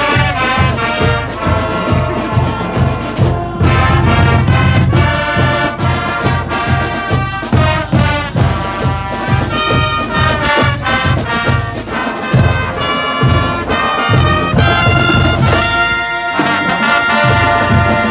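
High school brass band playing an upbeat tune: trumpets, trombones, saxophones and sousaphones over a steady low pulse, with a short break about three and a half seconds in.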